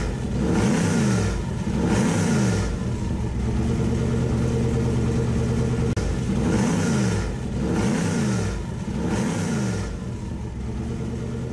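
Car engine revved in quick throttle blips, three in a row, then held at a steady speed before another three blips; it settles to a quieter steady run near the end.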